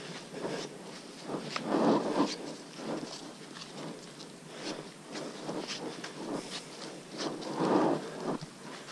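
Footsteps scuffing and crunching on a muddy, leaf-littered forest trail, with rustling of clothes and gear. The steps come irregularly, with two louder rustling bouts about two seconds in and near the end.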